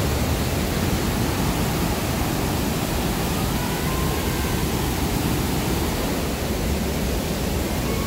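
Large waterfall in heavy flow: a steady, dense rush of falling water.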